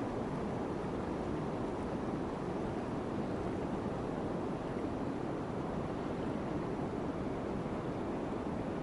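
Steady rush of a large river's flowing water, an even noise with no change.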